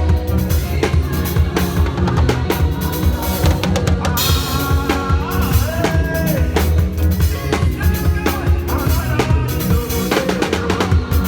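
Church praise band playing upbeat music, driven by a drum kit with busy snare and bass drum hits over a heavy bass line and sustained melodic instruments.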